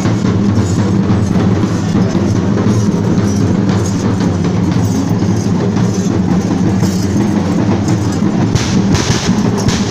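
Traditional Kerala festival drums playing continuously in a dense, loud, low-pitched rhythm, with a brighter, harsher spell near the end.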